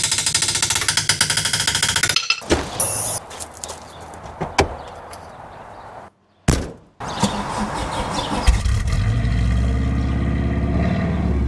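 An old Subaru 4WD wagon's flat-four engine is started about eight seconds in and then runs at a steady idle. Before that there is a fast, even clatter of ticks and a single knock.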